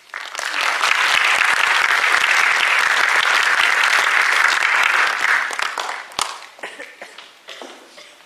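Audience applauding, a dense steady clapping that dies away after about five seconds into a few scattered claps.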